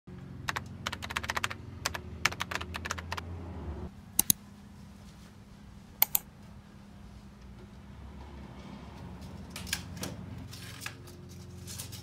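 Computer keyboard typing: a quick run of keystroke clicks in the first three seconds or so, then a few paired clicks and scattered single clicks, over a low steady hum.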